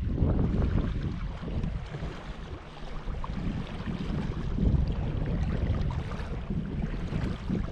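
Wind buffeting the microphone: a gusty low rumble that swells and eases over a few seconds.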